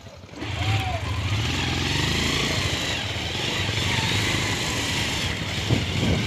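Motorcycle engine running steadily, coming in abruptly about half a second in.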